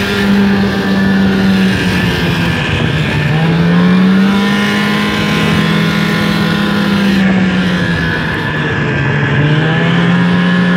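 Snowmobile engine running at speed on a trail. It eases off about two seconds in and climbs back around three and a half seconds, then eases and climbs again near the end.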